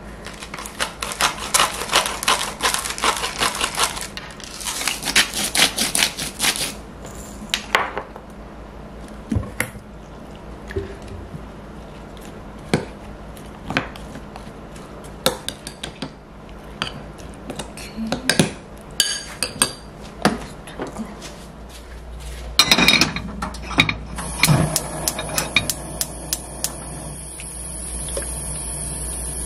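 Metal utensil stirring pancake batter in a glass mixing bowl: runs of rapid clinking and scraping against the glass, with scattered single clinks between. Near the end a steady hiss starts.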